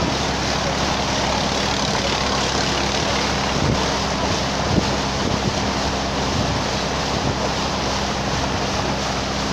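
Passenger boat's engine running steadily at cruising speed, with the rush of its churning wake and wind buffeting the microphone.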